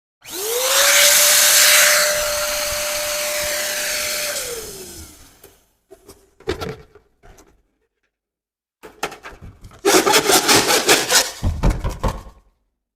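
Small electric motor, typical of an electric balloon pump, running for about five seconds: its whine rises as it spins up, holds steady, then falls away as it winds down. It is followed by a few short rustles and then a run of rapid crackling and rubbing.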